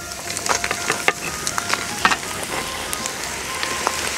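Red-hot stones in a wok sizzling as raw snakehead fish slices are slid onto them, a steady hiss with many sharp crackles and pops.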